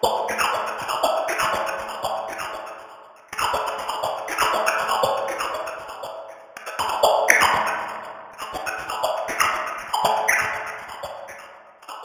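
Washing machine sound recordings cut and rearranged into a rhythmic, music-like loop of swishes and clicks. The loop restarts abruptly about every three and a third seconds.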